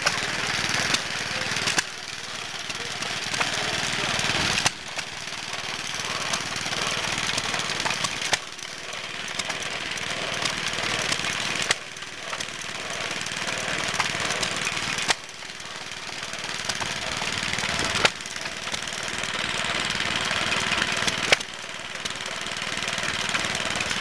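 Small vintage stationary engines running, one belt-driving a corn mill, under a dense steady hiss. A sharp click and a sudden drop in level come about every three seconds.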